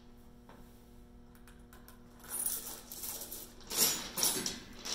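Steel chain of an Isochain strength-testing device rattling and clinking as its bar is picked up and raised, in a burst about two seconds in and a louder one near the end.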